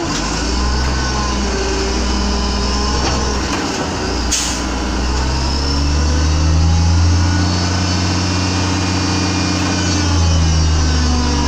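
Old Mack MR garbage truck's diesel engine running, with a short hiss of air about four seconds in. The engine then revs up and holds at higher revs until near the end, as it drives the hydraulics that lift and dump a dumpster.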